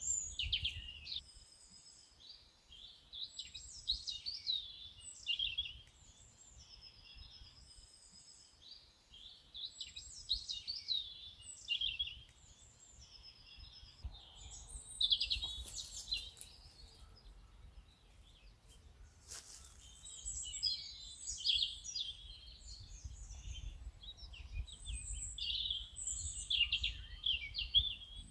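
Several birds chirping and singing continuously in quick overlapping calls, over a low background rumble. A couple of brief clicks come about halfway through.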